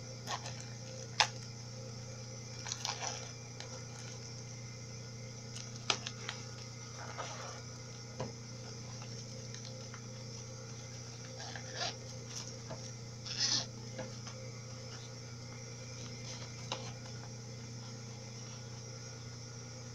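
Hands handling and folding a clear plastic and fabric bag: scattered crinkling rustles and a few sharp clicks over a steady low hum.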